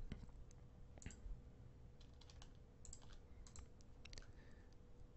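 Near silence with faint, scattered clicks of computer keys and mouse buttons, mostly from about a second in until about four seconds, over a faint steady hum.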